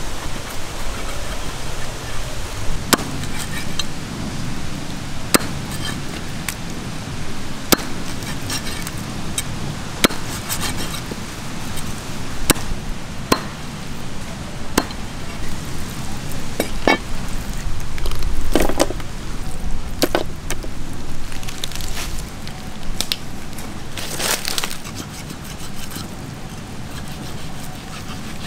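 A heavy cleaver chopping through eagle ray flesh onto a wooden log chopping block: single sharp strikes, irregularly spaced every one to three seconds, over a steady background hiss.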